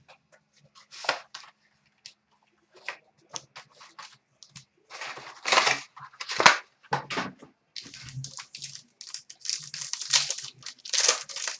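Plastic wrapping on a sealed box of trading cards being torn and crinkled as it is opened: a run of short, uneven tears and rustles, a few louder ones about halfway, and denser crinkling near the end.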